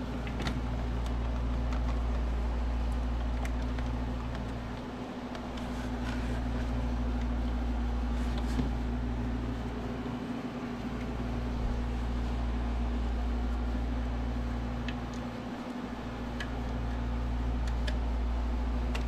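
Steady low hum of a running fan, swelling and fading about every five seconds, with a few faint light clicks from handling spark plug wires.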